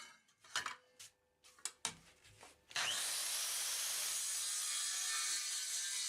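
Woodworking on a timber joint: a few short knocks and scrapes on wood, then from about three seconds in a steady hiss of a tool cutting or working the wood.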